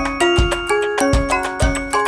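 Background music: an upbeat tune of plucked or mallet-like notes over a regular beat.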